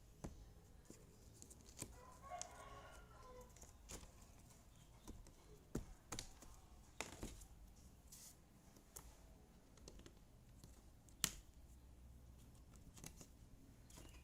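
Sparse light clicks and taps of jigsaw puzzle pieces being handled and set down, one sharper tap about eleven seconds in. A faint rooster crows in the background about two seconds in.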